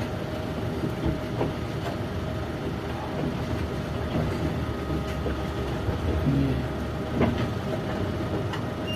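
Steady rumble and hum of running concrete batching plant machinery, with a faint steady tone over it and a few faint clicks.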